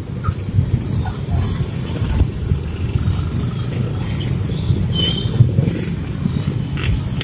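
Road traffic at a level crossing: motorcycles and a minibus moving over the tracks, a steady low rumble of small engines with a few brief higher sounds over it.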